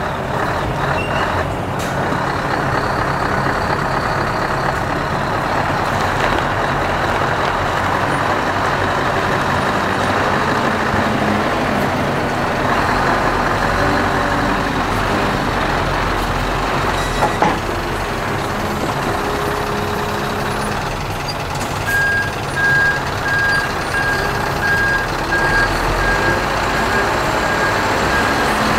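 Scania R620 hook-lift truck's V8 diesel engine running as the truck moves off with a loaded container. There is one short sharp sound a little past the middle. A reversing alarm beeps steadily over the last quarter.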